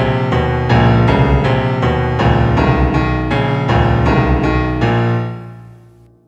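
Piano-like keyboard music: chords struck in quick repetition over low bass notes, ending on a held chord that dies away near the end.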